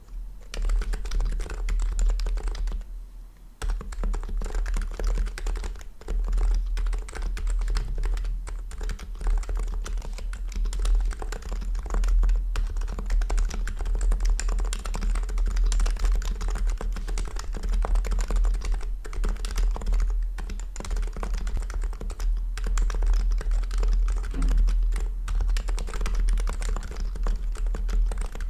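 Typing on a custom HHKB-layout keyboard with Topre-style rubber-dome switches (Realforce R2 PFU sliders and housings over HHKB Pro2 domes), a stainless steel plate and OEM-profile keycaps: a fast, continuous run of keystrokes with a brief pause about three seconds in.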